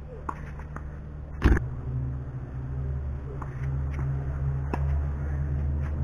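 Tennis rally: one sharp, loud racket-on-ball hit about a second and a half in, and several fainter hits spaced a second or so apart, over a steady low rumble.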